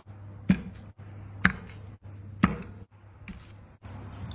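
Three sharp knocks about a second apart over a low steady hum, then a stretch of hiss near the end.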